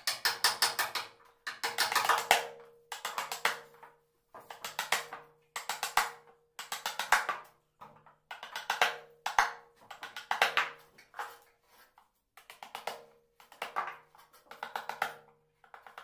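Mallet striking a wood-carving chisel in quick runs of light taps, about fourteen short bursts with brief pauses between, as the chisel cuts into the wood. A faint steady hum runs underneath.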